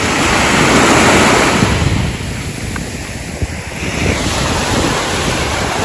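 Small sea waves breaking and washing up a sandy shore. The wash swells loudest about a second in, eases off, and builds again near the end, with wind buffeting the microphone.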